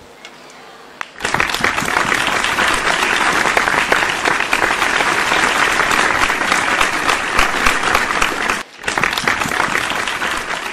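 Audience applauding, the clapping starting abruptly about a second in and carrying on, with a brief break near the end.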